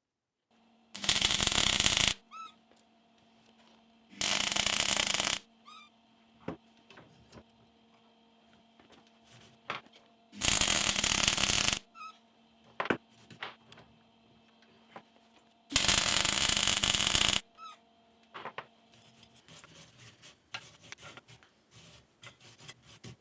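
Four short bursts of arc welding, each a second or so long, laying a repair weld on a steel gear lever. A faint steady hum and scattered small clicks come between the bursts.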